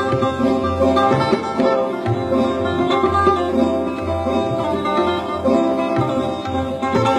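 Sarod and tabla in a Hindustani classical duet: the sarod plucks a quick melodic line over steady sustained tones, while the tabla's bass drum gives deep, pulsing strokes beneath.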